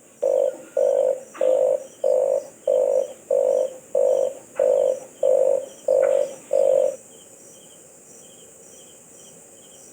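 Red collared dove giving a series of about eleven short, low coos, evenly spaced at a little under two a second, which stop about seven seconds in.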